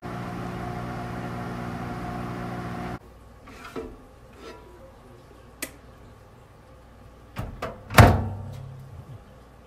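Microwave oven running with a steady electrical hum for about three seconds, cut off abruptly; then a few light clicks and a loud thump about eight seconds in.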